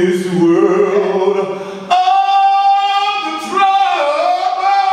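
A man singing solo into a microphone, holding long notes; about two seconds in he moves up to a high sustained note.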